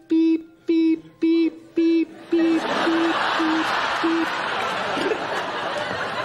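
Reversing-lorry warning beeps for a toy lorry backing up: a steady single-pitch beep about twice a second, eight in all, fading out about four seconds in. Audience laughter rises from about two seconds in and carries on.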